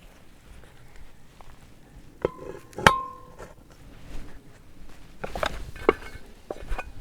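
Metal clanks from handling a cast iron Dutch oven: two sharp knocks a little after two seconds in, the second ringing briefly, then a cluster of lighter clinks and taps near the end.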